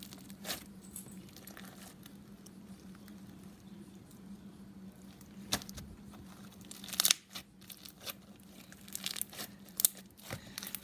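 Purple clear slime being squished and stretched by hand for ASMR, giving scattered sticky crackles and small pops, the loudest about seven seconds in and a flurry near the end, over a faint steady low hum.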